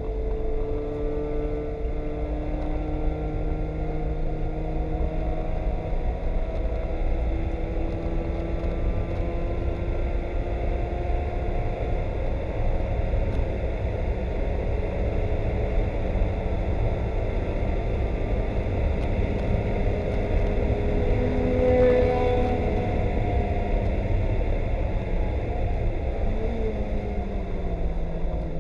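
Mazda Miata race car's four-cylinder engine heard from inside the cabin under hard driving, its note climbing and dropping with gear changes and falling in pitch near the end. A steady low rumble of tyres on the rain-soaked track runs underneath.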